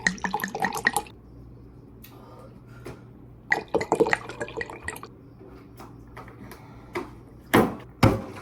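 Water pouring, splashing and dripping in three short spells, as drinking water is fetched.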